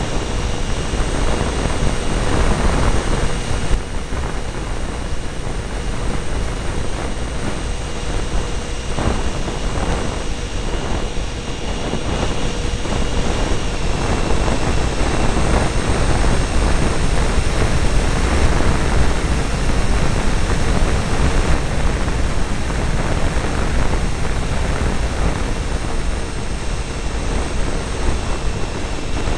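Twin 70 mm electric ducted fans of an RC F-22 model jet running steadily in flight, a thin steady whine under heavy wind rush, as picked up by a camera riding on the airframe.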